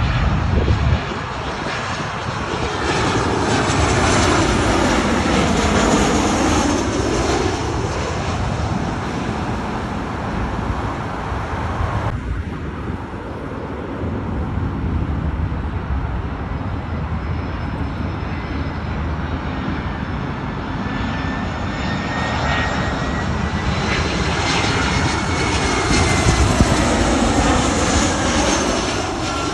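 Twin-engine jet airliners on final approach passing low overhead, the engine noise swelling and fading twice. A high whine rises and falls during the second pass.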